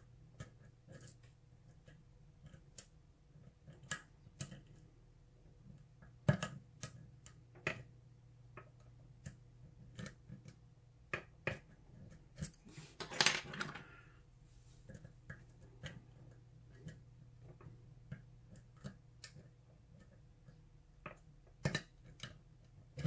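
Small, irregular metallic clicks and taps of a hook pick and tension wrench working the pins of a pin-tumbler lock, with a longer scraping rattle about 13 seconds in.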